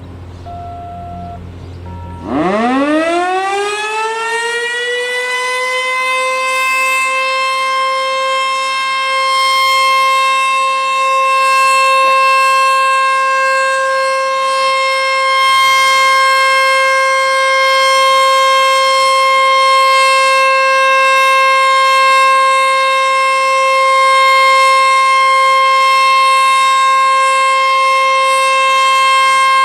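Sentry 14V-B outdoor warning siren starting up about two seconds in: its pitch climbs quickly, then holds one steady tone for its 3-minute Alert signal.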